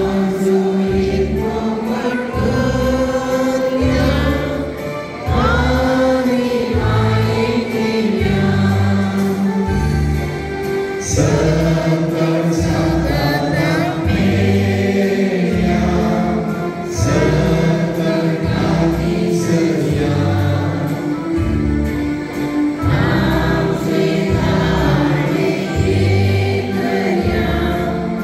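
Church congregation singing a hymn together, many voices over instrumental accompaniment with a bass line moving in steady steps.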